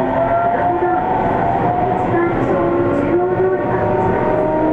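Sendai Subway Namboku Line 1000-series car's Mitsubishi IGBT-VVVF inverter and traction motors whining, with a slowly rising pitch, over steady wheel and rail running noise, heard from inside the car.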